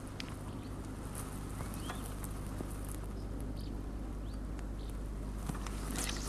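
Quiet lakeside ambience with a low steady hum, a few short, faint bird chirps and scattered light clicks.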